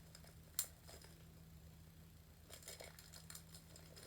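Quiet handling of a Beyblade and its packaging: one sharp click about half a second in, then faint crinkling near the end.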